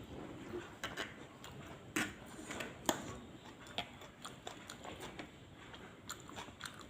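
Person eating fried rice vermicelli close to the microphone: chewing and mouth sounds with irregular small clicks and taps, the sharpest about two and three seconds in.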